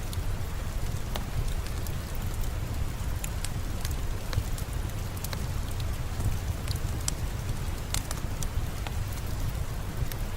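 Steady rain with a low rumble underneath, mixed with the scattered pops and crackles of a wood fire burning in a fireplace.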